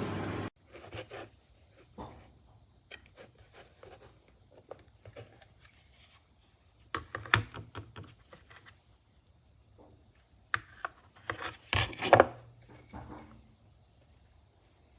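Handling noise: scattered light knocks, clicks and rubbing of objects being moved about, with the loudest knocks about seven seconds in and a cluster around twelve seconds in, over a faint steady hum.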